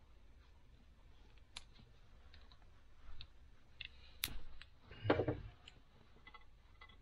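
Scattered light clicks and taps from hands handling car-audio wiring and install parts. There is a sharp click about four seconds in and a louder knock about a second later.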